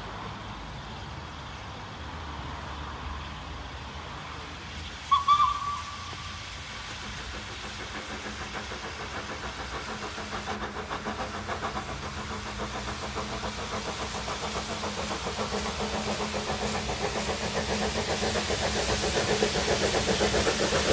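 Steam shunting locomotive sounds one short whistle blast about five seconds in. Its exhaust beats then come in rhythmically and grow steadily louder as it works up the gradient towards the listener.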